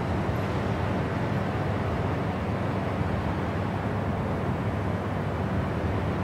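Steady airliner cabin noise at cruise: the engines and the rushing airflow make an even, unbroken noise that is heaviest in the low end.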